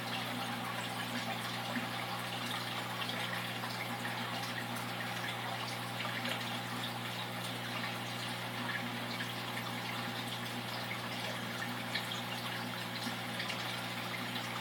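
Running aquarium water: a steady trickling, bubbling wash with a constant low hum underneath.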